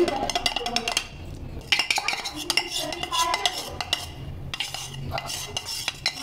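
A metal spoon clinking and scraping against a ceramic bowl in quick, irregular taps while butter and spice powder are worked together.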